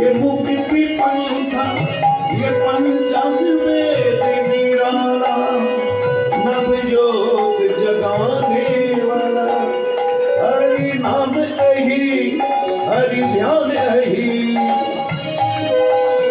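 Devotional music accompanying an aarti: a drum, rattling and ringing percussion, and a long steady held note through much of it.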